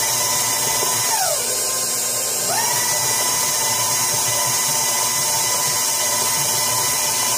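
KitchenAid Professional 5 Plus stand mixer running at high speed, its beater whipping a thick soap frosting. The motor's steady whine slides down in pitch about a second in, then climbs back up a little after two seconds and holds.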